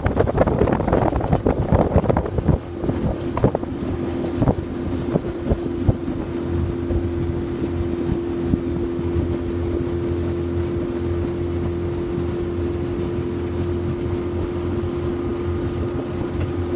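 Motorboat engine running at a steady pitch under way, with wind buffeting the microphone for the first couple of seconds before the sound settles.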